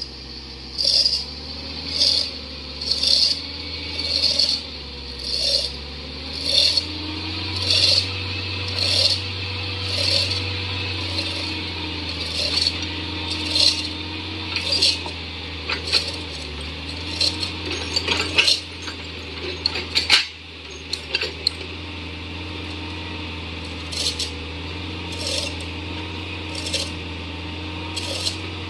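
Mini excavator's diesel engine running steadily, with a sharp metallic clink about once a second over it; the clinks bunch together around the middle and come more sparsely near the end.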